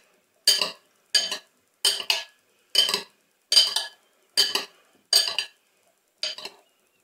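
Two metal spoons tossing pasta salad in a ceramic bowl: eight clinking, scraping strokes, one about every 0.8 s, the last one fainter.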